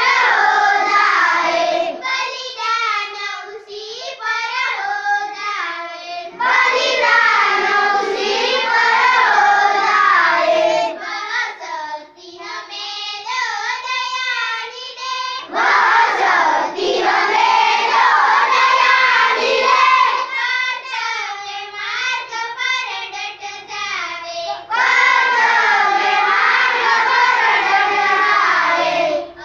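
A group of schoolchildren singing a prayer together in unison, in sung phrases, with fuller, louder stretches alternating with thinner ones every few seconds.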